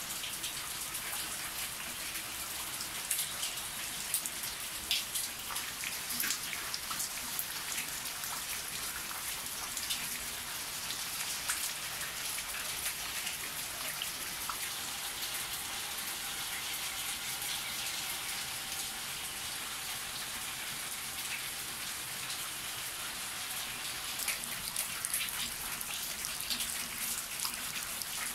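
Heavy rain falling steadily, with drops splashing close by into a basin of standing water. The close drop impacts come thicker about three to six seconds in and again near the end.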